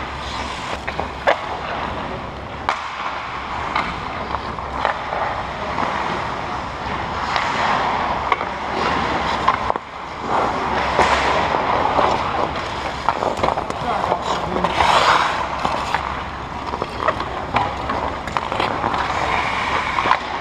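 Ice hockey skates scraping and gliding on the ice, with sharp clacks of sticks and puck, in a large indoor ice rink; a louder skate scrape about fifteen seconds in.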